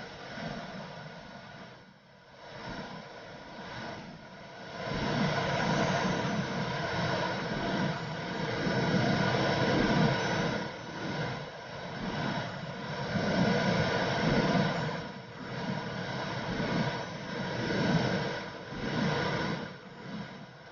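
Womb sound for soothing a baby: a steady whooshing hiss with a low, muffled surge that swells and fades in repeated pulses, like blood flow and heartbeat heard from inside the womb.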